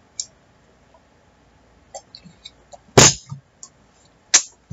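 A person drinking water from a glass, with faint swallows and mouth clicks. About three seconds in comes one loud, sharp sound, and near the end a shorter one.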